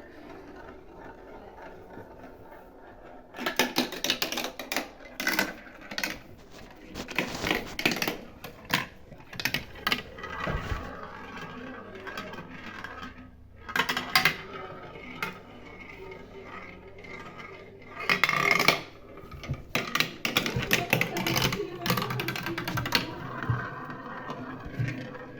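Marbles rolling and clattering through a Gravitrax plastic marble run: after a quiet start, about three seconds in, a long run of irregular clicks, clacks and rattles begins as the balls strike and roll along the track pieces.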